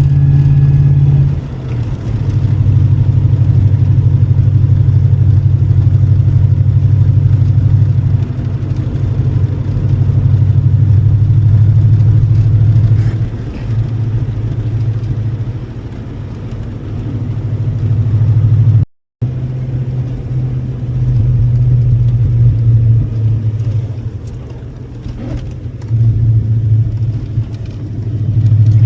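Holden Commodore VP SS's 5.0-litre V8 engine running under way, a steady low drone that eases off and comes back several times as the throttle changes. The sound cuts out completely for a split second about two-thirds of the way through.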